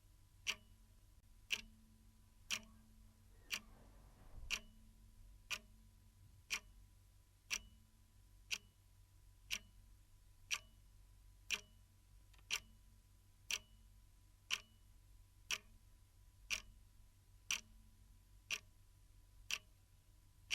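Clock ticking steadily, one tick a second, over a faint low hum.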